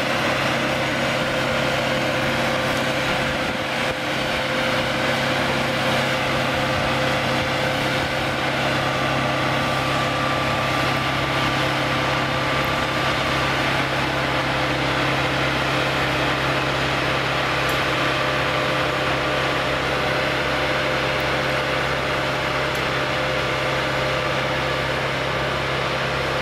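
Diesel engine of a Plasser & Theurer APT 1500 RA rail welding machine running steadily as the machine rolls slowly along the track, a constant drone with a steady hum under it.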